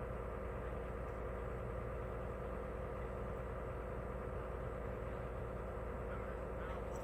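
An engine idling steadily, an even hum that does not change.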